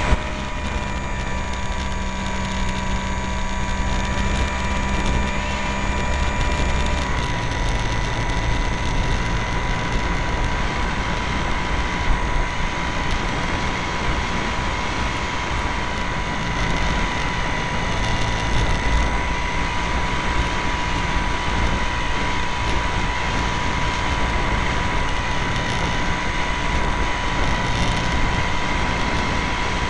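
Airplane engine and propeller droning steadily, heard from a camera mounted on the plane, with wind noise over the microphone. The pitch of the drone steps down slightly about seven seconds in.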